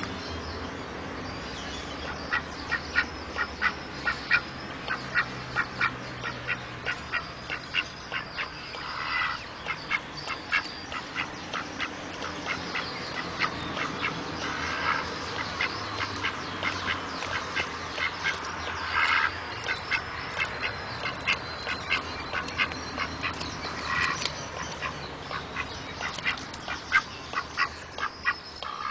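Duck calling in a rapid run of short, sharp quacks, several a second, broken by a few longer, louder quacks every few seconds.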